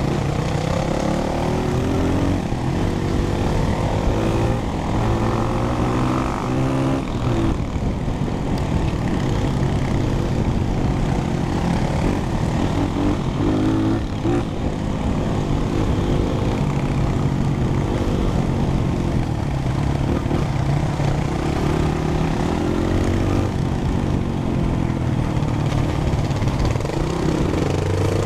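Dirt bike's four-stroke single-cylinder engine running on a trail ride, heard from on the bike itself, its pitch climbing and dropping again and again as the rider works the throttle and gears.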